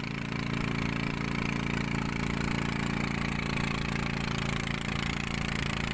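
Engine of a small motorized wooden boat running at a steady speed: an even, unchanging drone.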